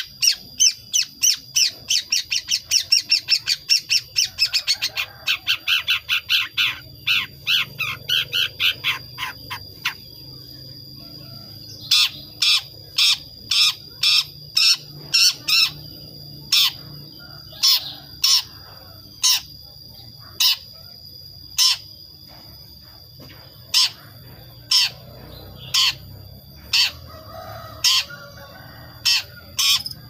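Young long-tailed shrike (cendet), about five months old, practising its song: a fast run of short harsh chirps, about three to four a second, for roughly the first ten seconds, then after a brief pause slower single chirps about one or two a second. This is the juvenile's natural chattering ('ngriwik') while it learns to sing, before it is trained on recorded songs.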